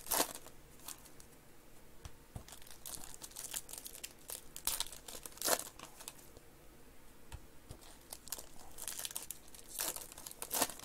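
Foil wrapper of a basketball trading-card pack crinkling as hands handle it and slide the cards out: irregular rustling, with louder crackles at the start, about halfway through and near the end.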